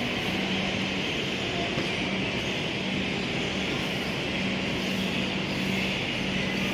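Steady railway-station noise of a train: an even mechanical rumble and hiss, with a low hum that cuts in and out every second or so.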